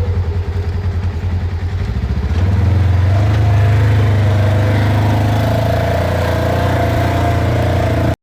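Off-road vehicle's engine running with an even low pulse, then revving up about two and a half seconds in and holding at a higher, steady speed with a whine over it. The sound cuts off suddenly at the end.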